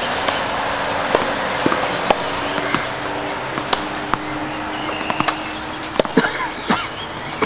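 Tennis rally: sharp pops of racket strikes and ball bounces, roughly a second apart and coming thicker about six seconds in, over a faint steady hum.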